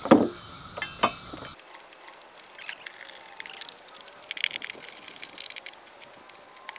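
Light metallic clicks, clinks and rattles of battery cable connectors and terminal hardware being handled, with a couple of sharper knocks in the first second and a half and scattered small clicks after.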